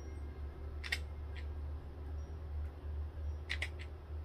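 Hot glue gun trigger clicking as glue is pressed out onto a styrofoam ball: one sharp click about a second in, a fainter one just after, and a quick pair near the end, over a steady low hum.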